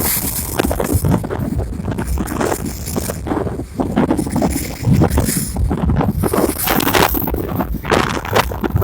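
Wind buffeting the microphone, loud irregular rumbling gusts with bursts of hiss.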